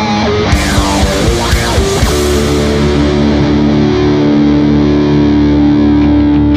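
Instrumental rock music with distorted electric guitar: a quick run of changing notes with a few sharp hits, then a long held chord from about two seconds in.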